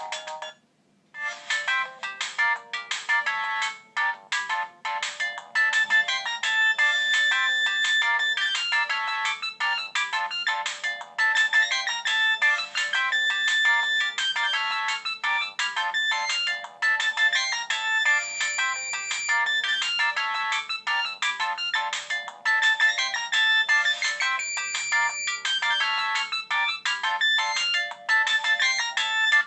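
Siemens MC60 mobile phone playing a polyphonic ringtone, a busy electronic melody of quick notes. One tune stops just after the start, and after a short gap a new one begins about a second in and plays until just before the end.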